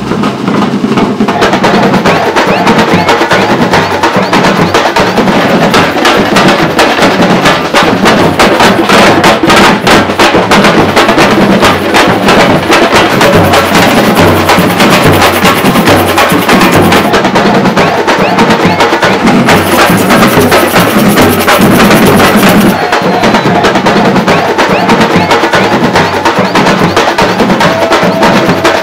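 Street percussion group playing snare drums, large bass drums and hand drums together in a dense, fast rhythm.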